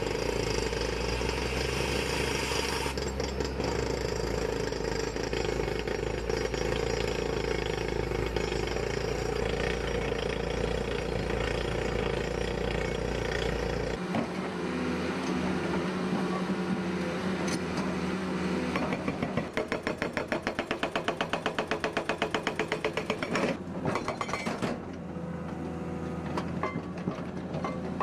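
Crawler-mounted rock drill rig running steadily as it drills into a rock slope. About halfway through, a CAT 320D2 excavator takes over, its hydraulic breaker hammering rapidly on rock, and near the end the hammering stops.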